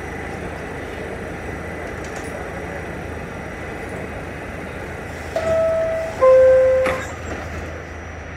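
R46 subway car's door chime, two descending tones about five and six seconds in, the second one louder. Right after it the doors slide shut with a sharp knock, over the steady hum of the stopped train.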